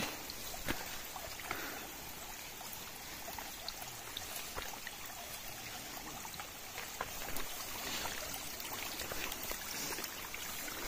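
Steady running, trickling water, with a few faint scattered taps.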